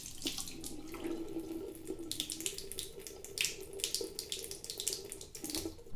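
Water running from a tap into a sink, with irregular splashing and a faint steady hum underneath.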